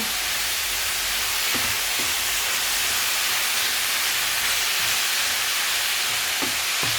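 Blended chicken and onions frying in groundnut oil in a pot, sizzling steadily as the meat browns.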